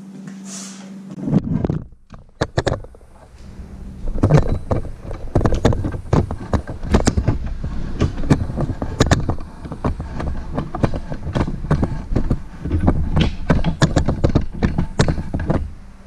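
PVC pipes and fittings being handled and fitted together: quick, uneven knocks and clatters, over a steady low hum.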